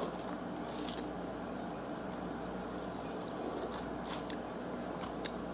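A person chewing food, with a few sharp clicks about a second in and twice near the end, over a steady low hum.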